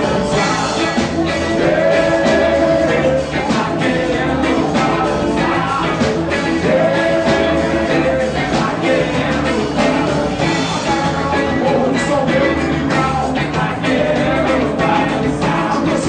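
Up-tempo band music with a steady beat and held melody notes, with some singing.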